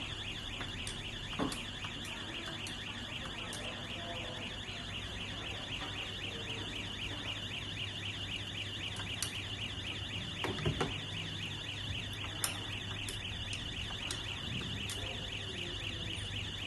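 Activated fire alarm sounder giving a rapid, repeating high-pitched electronic tone over a steady low hum. A few clicks and a couple of knocks sound over it, the knocks about ten seconds in.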